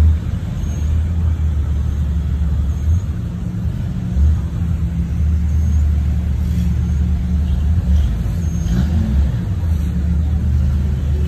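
A Jeep's engine running steadily, a low rumble.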